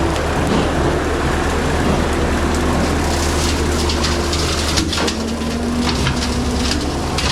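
John Deere 326E skid steer's diesel engine running steadily under load with its hydraulic brush cutter spinning, and a crackling patter of brush being shredded, thickest in the second half.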